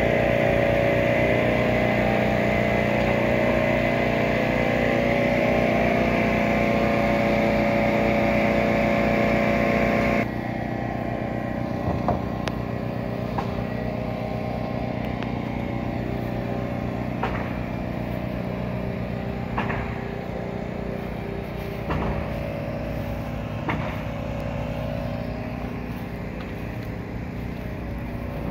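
A motor or engine running steadily, with a pulsing drone. It drops suddenly in level about ten seconds in. A few sharp knocks follow at intervals.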